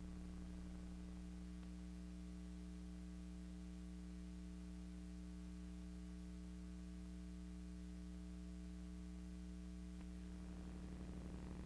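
Steady electrical mains hum, a low buzz with several overtones and no other sound; a faint rough noise joins near the end.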